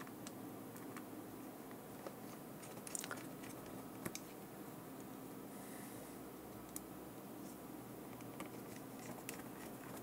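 Faint, scattered small clicks and ticks of a precision screwdriver driving screws into the plastic back case of a Garmin Nuvi GPS, over low room tone.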